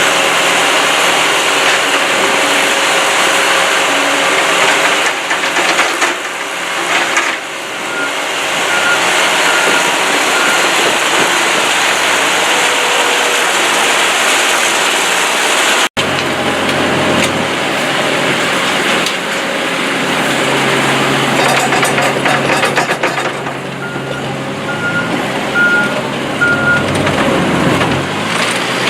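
Portable trommel screening plant running with its diesel engine, rotating drum and conveyors, a steady loud mechanical din. A reversing alarm beeps in two short spells, the first about a third of the way in and the second near the end.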